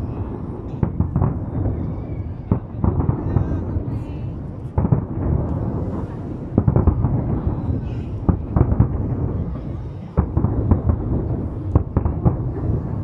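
Aerial fireworks display with shells bursting in rapid succession: sharp bangs and deep booms over a continuous low rumble.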